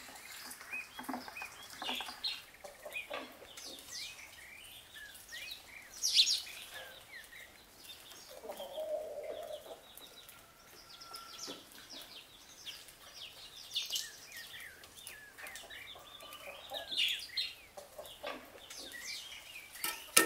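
Chickens clucking and small birds chirping throughout, a yard full of short scattered calls.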